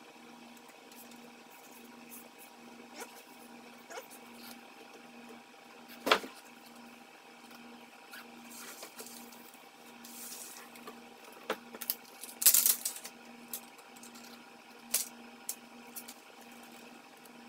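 A wooden ruler and masking tape being handled on a plastic car bumper: scattered light taps and knocks, a sharp knock about six seconds in, and a short rasp of tape being pulled from the roll about twelve seconds in.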